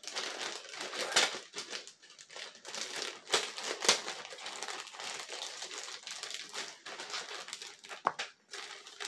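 Thin clear plastic bag crinkling irregularly as hands work it open and pull a plush toy out.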